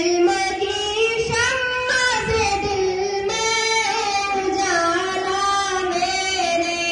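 Young female voices singing a devotional prayer song together, in long, held notes that slide gently in pitch.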